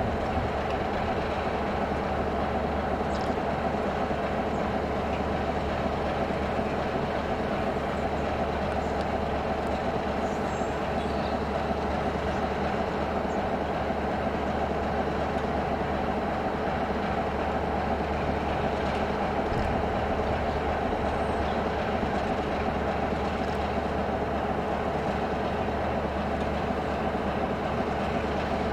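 Class 33 diesel locomotive's Sulzer eight-cylinder engine running steadily, an even, unchanging drone.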